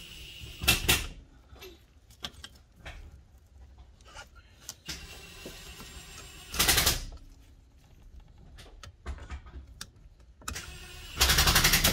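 Three short bursts of a small power tool, each under a second: one near the start, one about halfway and one just before the end. Between them come light clicks and knocks from metal parts being handled.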